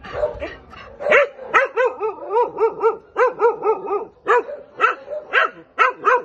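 A dog yelping in a rapid string of short high cries, each rising and falling in pitch, about five a second, starting about a second in with a brief break near the middle.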